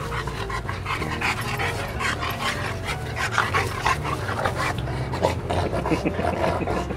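A bullmastiff puppy and an adult bullmastiff play-fighting: a quick run of short dog sounds with panting, busiest in the middle.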